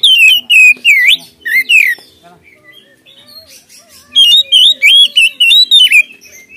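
Oriental magpie-robin singing in loud, rapid bursts of varied whistles and sharp notes. It sings one phrase of about two seconds, pauses about two seconds, then sings another.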